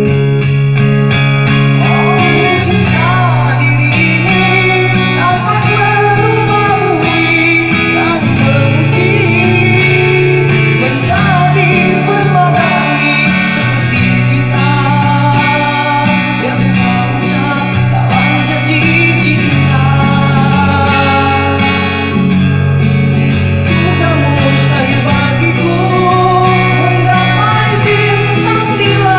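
A song: a voice sings a gliding melody over guitar accompaniment with a steady bass line.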